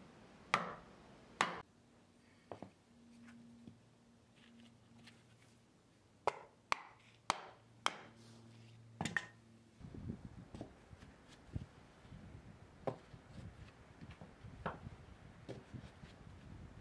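Hand-split shortleaf pine floor blocks knocking against each other as they are set in place: sharp wooden clacks, two near the start and a quick run of about five in the middle. After that come softer scraping and light taps as blocks are pushed into the sand bed.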